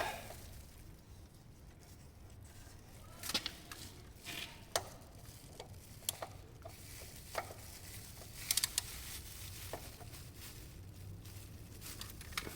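Disposable plastic gloves being pulled on: faint crinkling with a few scattered light clicks and crackles.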